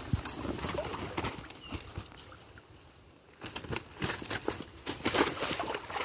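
Water splashing and slapping as a large rohu thrashes in a cast net being hauled out of shallow water, with the net rustling as it is dragged. The sound eases off in the middle, then comes back as a run of louder, irregular splashes.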